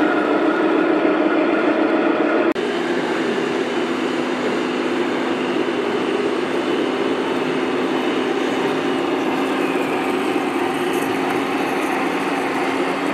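Steady engine drone from 1:16-scale RC military vehicles, the simulated diesel sound of their sound modules mixed with the whine of their electric drives. The sound breaks off abruptly about two and a half seconds in and carries straight on with a slightly different, steady hum.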